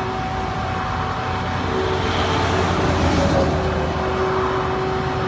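Flatbed tow truck running with a steady hum, its winch pulling a pickup up the tilted bed. The noise swells a little in the middle.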